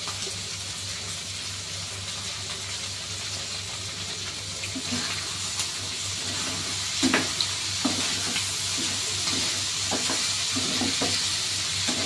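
Pork large intestine stir-fry sizzling in its sauce in a frying pan, a steady hiss over a low hum that grows a little louder after about four seconds. From about seven seconds a ladle stirs it, knocking and scraping against the pan several times.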